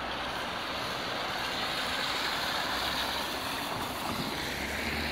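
Steady rain on a city street, with traffic passing over the wet road and a low engine hum underneath. The hiss swells a little in the middle.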